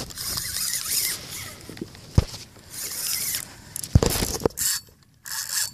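Fishing reel drag buzzing in uneven spurts as a big fish, likely a shark, pulls line off the reel. Two sharp knocks come about two and four seconds in.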